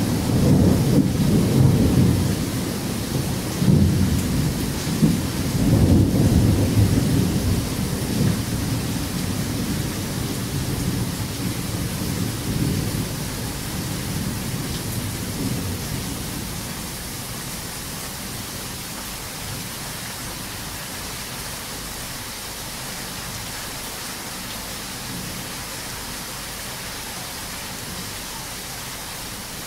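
Heavy rain pouring steadily, with a long roll of thunder rumbling in several swells through the first several seconds and dying away by about halfway. After that only the steady rain remains.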